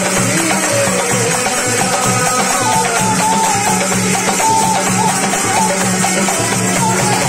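Indian folk music, loud and steady: a repeating drum beat underneath with hand percussion, and a wavering melody line that slides up and down above it.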